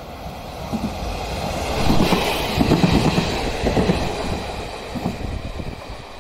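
Two-car KiHa 47 diesel railcar train passing close by, its wheels clattering in a rhythm over the rail joints. It grows loudest about two to three seconds in, then fades as the train moves away.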